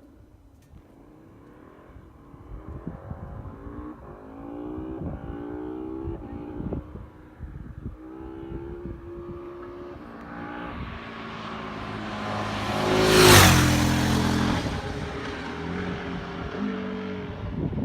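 KTM 1290 Super Adventure's V-twin on its stock exhaust accelerating hard through several quick upshifts, its rising engine note dropping back at each shift. It sweeps past loudest about two-thirds of the way in, the pitch falling as it goes by, then fades away.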